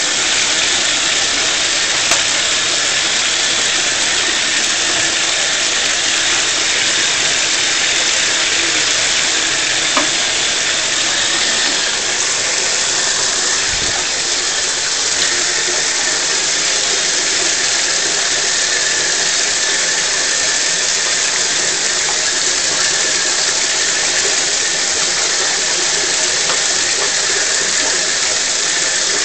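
Water running steadily into a bathtub, a constant rushing hiss, while a beagle is bathed.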